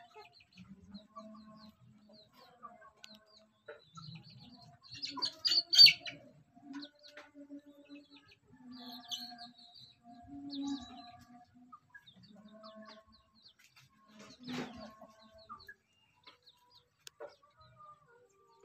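Chickens calling: soft low clucks and short high chirps scattered throughout, loudest in a cluster of shrill calls about five to six seconds in and again about fourteen seconds in.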